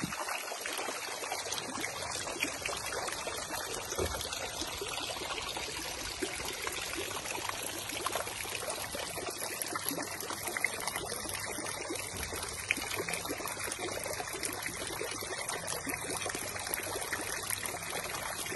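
Several thin water jets arcing into a shallow brick-lined garden water channel, splashing steadily into the standing water.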